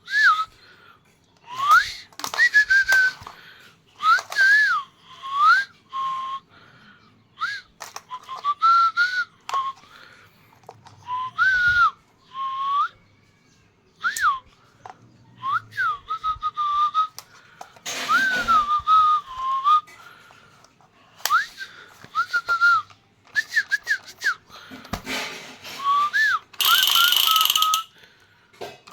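Whistling: a single pure tone in short phrases that swoop up and down, again and again, mixed with clicks and clatter. Near the end a harsher hissing noise comes in under the whistle.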